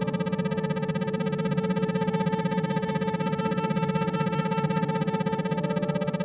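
Electronic meditation drone of steady held synthesizer tones over a low tone that pulses rapidly and evenly, in the manner of isochronic tones.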